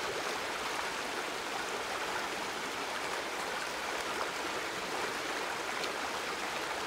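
Creek water running steadily, a continuous rushing noise with no breaks.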